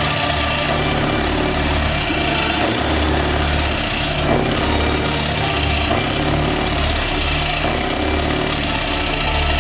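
Scania V8 truck engine idling through its exhaust: a steady, loud rumble with an uneven, pulsing low beat.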